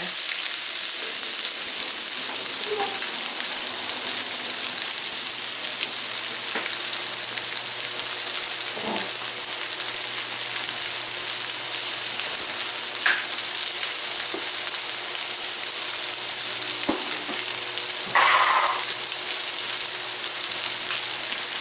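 Cornstarch-coated beef pieces sizzling steadily in a little oil in a non-stick pan on high heat, left undisturbed to sear and brown. The frying hiss holds even, with a few faint pops.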